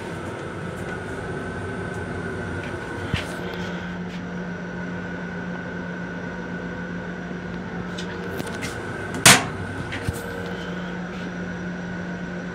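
Steady hum inside an MTA Long Island Rail Road M7 railcar, with a few light clicks and one loud sharp bang about nine seconds in.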